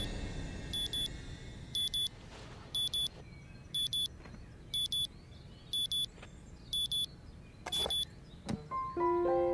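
Digital alarm clock beeping a high double beep about once a second, eight times, then falling silent after a single knock near the end. Soft mallet-like music notes come in just after.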